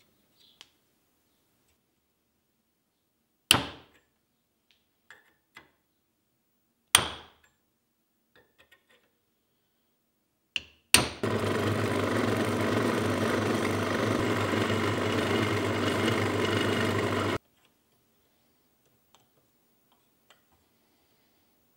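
A hammer strikes a steel transfer punch four times, each a sharp metallic strike with a short ring, the third softer, to mark hole centres through a stainless plate into an aluminium casting. Right after the last strike a motor runs steadily for about six seconds and then cuts off abruptly.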